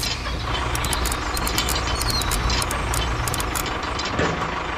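Tractor engine idling steadily at a low, even pitch, with a run of light clicks in the first part as a small plastic plough attachment is handled at the toy tractor's hitch.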